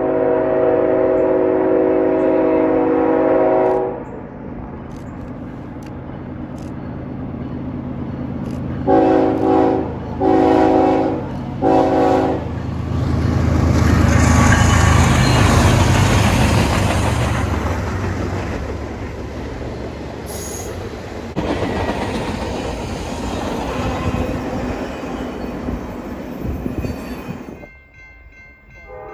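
BNSF freight train's locomotive air horn sounding a long chord, then three shorter blasts about nine to twelve seconds in, as the diesel locomotives close in and pass, loudest about fourteen seconds in. The rolling clatter of the double-stack intermodal cars follows and cuts off suddenly near the end.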